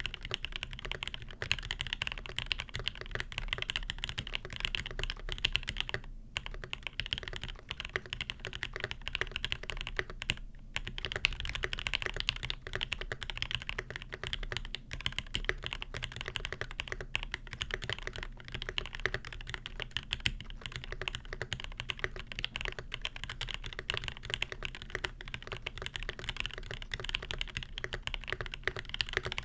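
Steady fast typing on a custom Primus mechanical keyboard with lubed Alpaca linear switches on a brass plate: a dense run of keystroke clacks, with two short pauses, one about six seconds in and one about ten seconds in.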